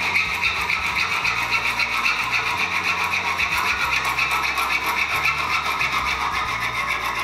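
Junior hacksaw cutting through mineral-insulated (MI) cable, steady rhythmic back-and-forth rasping strokes as the blade saws the cable to length.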